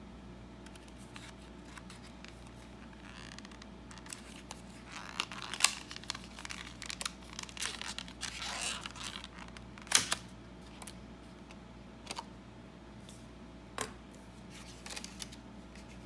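A mechanical pencil's cardboard-and-plastic blister pack being handled and opened: crinkling and tearing with sharp clicks, loudest about five and a half and ten seconds in.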